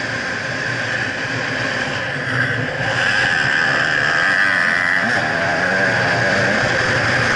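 Gas Gas EC300 300cc two-stroke dirt-bike engine running under load while being ridden. The revs ease off briefly about two seconds in and pick up again about a second later.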